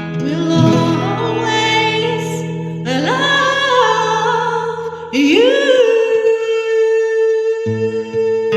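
A woman singing three sustained, wordless phrases over acoustic guitar, each swooping up into a held note, the last held long and steady. The guitar's low notes drop out about halfway and a new chord comes in near the end.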